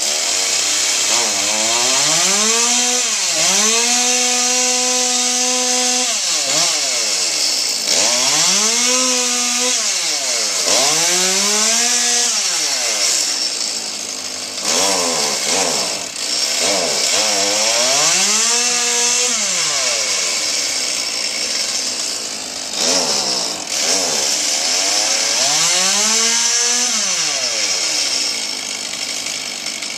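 Two-stroke chainsaw cutting wood, its engine revving up and falling back about five times, held at full speed for a couple of seconds once near the start.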